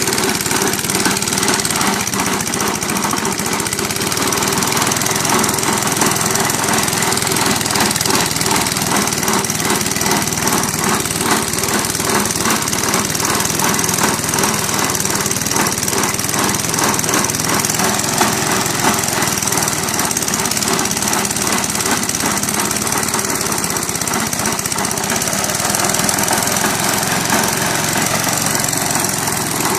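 Honda lawnmower engine running hard and continuously, with a fast, steady rhythm, after its gasket has blown.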